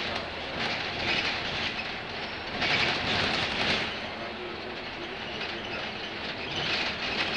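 Cabin noise of a moving double-decker bus: engine and road noise heard from the upper deck, growing louder and hissier for about a second around three seconds in.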